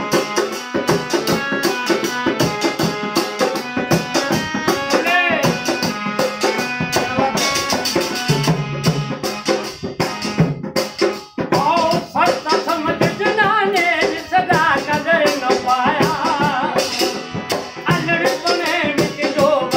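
Live Punjabi folk music: a tumbi plucked in a quick, rattling rhythm over a harmonium's held notes, with a man's singing voice in the second half.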